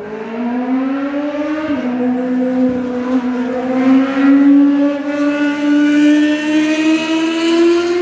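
Race car engine under hard acceleration, its note climbing steadily through the revs, with a brief drop about 1.7 seconds in at an upshift.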